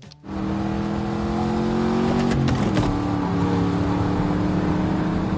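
Race car engine at speed in a film soundtrack, heard from the open cockpit. Its pitch climbs steadily, dips with a few sharp clicks about two and a half seconds in, then holds steady.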